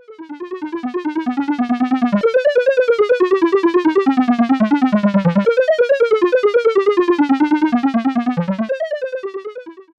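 Synthesizer music: a rapidly pulsing electronic melody, about ten pulses a second, wandering up and down in pitch. It swells in at the start and fades out near the end.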